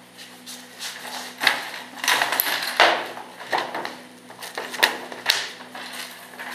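Paper rustling and flicking as textbook pages are turned, with irregular sharp knocks of books being handled on a table, over a steady low hum.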